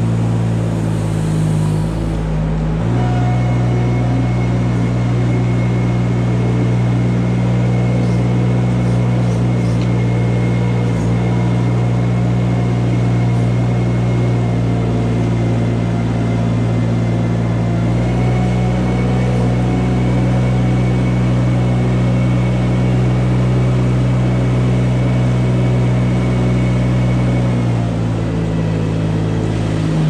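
Compact loader's engine running steadily under load while its rubber scraper blade pushes manure along a barn alley, with a thin steady whine above the engine note. The engine note shifts a few times.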